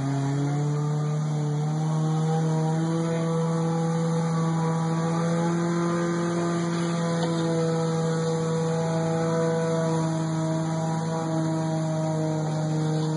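Four-wheel-drive vehicle's engine running at steady revs while driving through river water, heard from inside the cab. The pitch steps up slightly about a second and a half in, then holds.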